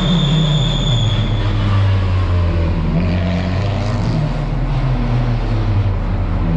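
Touring race car engine running through a street-circuit corner, its pitch rising and falling with the throttle. A high thin whine fades out about a second and a half in.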